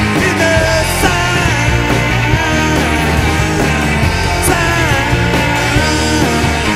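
Rock band playing live: electric guitar, bass and drums in a loud instrumental passage, with a lead line bending up and down in pitch and cymbal crashes about a second in and again past four seconds.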